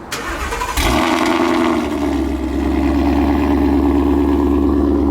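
Ford Mustang GT 5.0 V8 on E85 with aftermarket headers being started: the starter cranks briefly, the engine catches under a second in with a loud flare, then settles into a steady, lumpy idle by about two seconds in.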